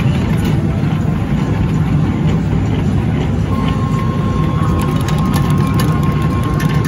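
Steady low rumble of arcade machine noise around a ping-pong ball pusher game, with a thin steady electronic tone coming in about halfway through and faint light clicks near the end.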